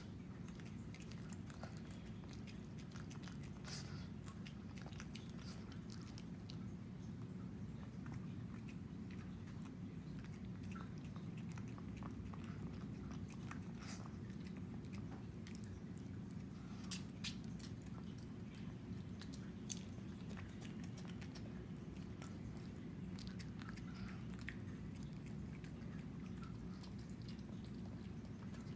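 Shih Tzu eating sardines and rice off a ceramic plate: scattered wet chewing and licking with small sharp clicks, over a steady low hum.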